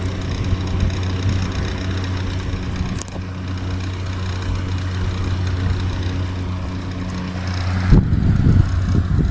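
Homemade air cooler's 12 V DC motor fan running with a steady hum, with one click about three seconds in. Near the end the sound turns into a louder, uneven low rumble.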